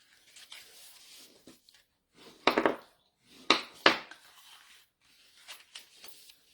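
Scored cardstock being folded and creased with a bone folder: soft paper rustling, then three sharp creasing strokes from about two and a half to four seconds in, and a few lighter ones near the end.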